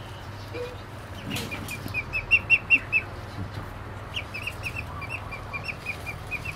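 A duckling peeping: runs of short, high chirps, about five a second, in two bouts with a short pause between. The first bout is the loudest.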